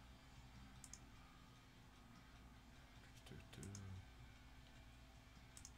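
Near silence with a few faint, scattered clicks at a computer: a single click about a second in, a short cluster past the middle, and one more near the end.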